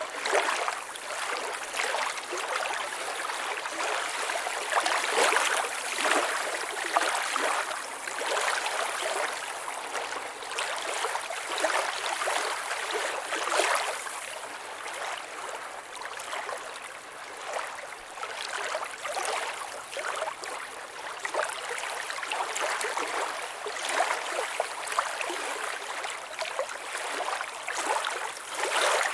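Water lapping and splashing at a lake's edge, with small waves breaking irregularly in a continuous washing hiss that surges every second or two.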